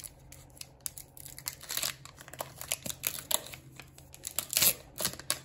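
Foil Pokémon trading-card booster pack wrapper crinkling and tearing as it is ripped open by hand. The crackles come irregularly, with the loudest burst near the end.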